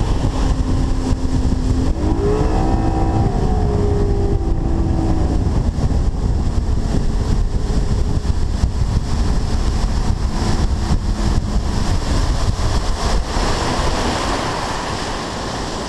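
Bass boat's outboard motor running under way with a heavy wind rush over the microphone. A little after two seconds the engine note rises as the throttle opens, then holds steady at the higher pitch.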